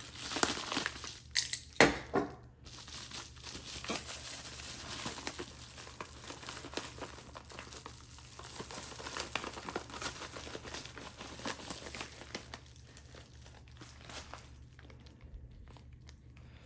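Sealed plastic packaging being torn open and handled: a few sharp rips about a second or two in, then continuous crinkling that grows quieter over the last few seconds.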